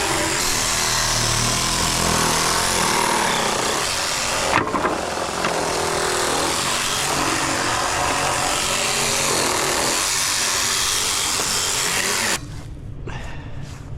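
A machine or power tool running loudly and steadily, with a sharp knock about four and a half seconds in. It cuts off suddenly near the end.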